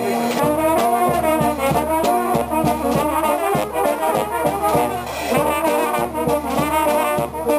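Serbian Dragačevo-style brass band playing a lively tune, with trumpets and tenor horns in harmony over a steady drumbeat.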